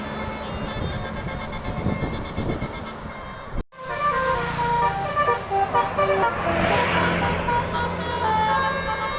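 Traffic noise from passing vehicles, broken off briefly about a third of the way in; then a bus's Basuri telolet horn plays a quick tune of short stepped notes over the traffic.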